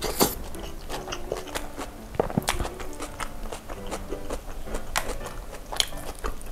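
Close-miked wet mouth sounds of eating a beef kebab: smacks and clicks as the sauce is licked off the fingers and the bite is chewed. Soft background music with a simple melody plays underneath.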